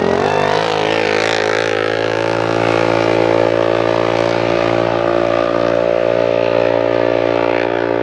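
Side-by-side UTV race car's engine running hard under load. Its note wavers as the car passes close, then holds one steady, unchanging pitch as it climbs away.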